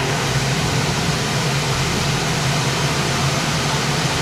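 Belimed PH880 large parts washing machine running steadily inside its chamber: an even rushing noise over a constant low hum.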